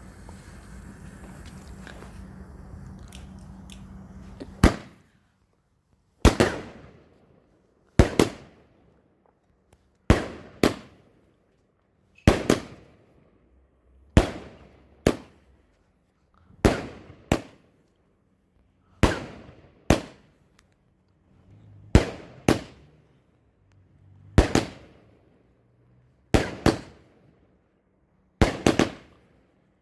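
Firework barrage: after a few seconds of steady hiss, a string of sharp, loud bangs, about one every second or two, many coming in quick pairs, each dying away quickly.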